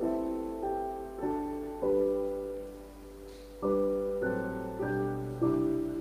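Piano playing slow, gentle chords, each struck and left to fade, with one chord held longer through the middle.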